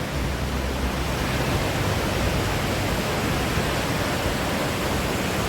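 Mountain river rushing down a drop of about ten feet, a steady, even roar of falling water that is coming down pretty good.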